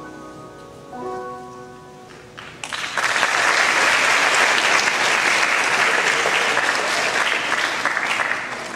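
A piano plays its last notes, a chord struck about a second in and left to fade. Then an audience claps loudly from about three seconds in, dying down near the end.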